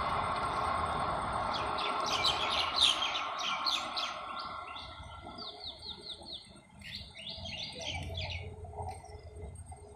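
Small birds chirping in quick runs of notes, in two bouts, the second a few seconds after the first. Under the first bout the rumble of a train moving away fades out.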